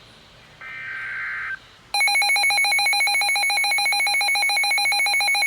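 A weather radio receiver sounding an alert: a brief burst of digital data tones, then from about two seconds in a loud, buzzy electronic alarm tone, pulsing rapidly, marking an incoming severe thunderstorm warning.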